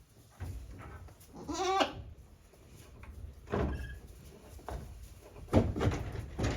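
Newborn goat kids bleating: a quavering bleat about a second and a half in and a shorter one about two seconds later. Several low knocks and thuds follow near the end.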